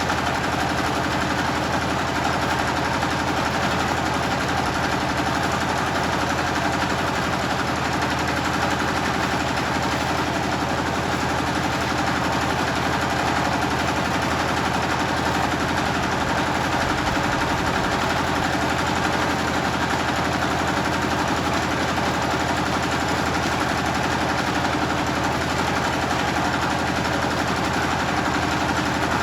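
Generator engine running steadily with a rapid, even beat.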